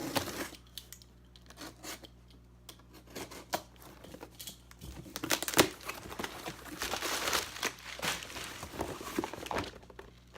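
A cardboard shipping box being opened by hand: tape tearing and packing material crinkling. There are a few scattered knocks and clicks at first, then a denser run of tearing and rustling from about five seconds in, with one sharp loud snap just after that.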